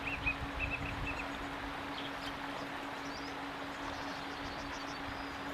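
Steady rush of a small stream flowing over stones, with a quick run of short, high bird chirps in the first second and a few fainter, higher chirps around the middle. A steady low hum runs underneath.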